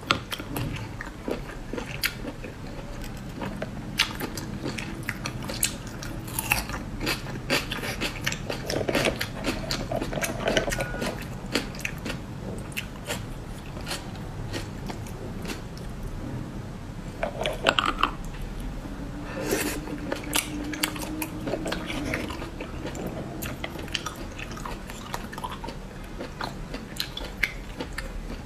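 Close-miked eating of spicy snails: wet chewing and sucking of snail meat, with frequent sharp clicks as the snail shells and a toothpick are handled over the bowl.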